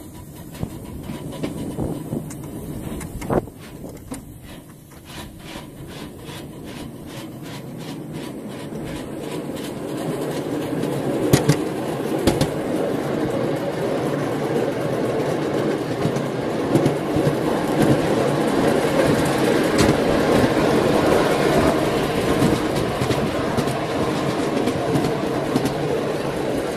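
Miniature railway steam train pulling away and gathering speed: regular clicking from the wheels and running gear at first, building into a louder, steady rattle and rumble of the wheels on the rails.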